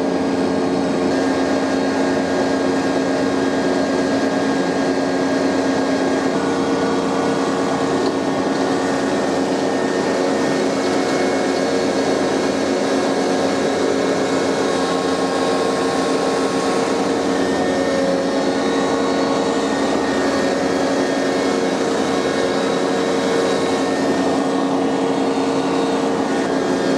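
Ventrac 4520 compact tractor's three-cylinder Kubota engine running steadily at working revs while the front Tough Cut mower deck cuts grass: an even, unbroken drone with a steady whine.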